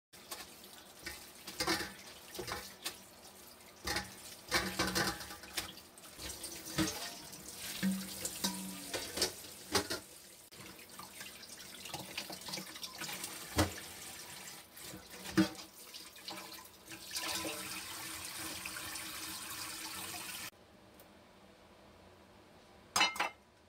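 Water running and splashing in a stainless steel kitchen sink as carrots and cabbage are rubbed clean by hand in a metal bowl, with frequent knocks and clinks against the steel. The water noise cuts off suddenly near the end, followed by a brief clatter.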